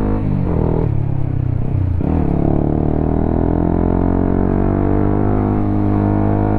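Honda CBR motorcycle with a WRX K3 oval aftermarket exhaust under way. The engine note drops sharply twice in the first two seconds, as at upshifts, then climbs steadily as the bike pulls. The exhaust sound is mellow ('adem').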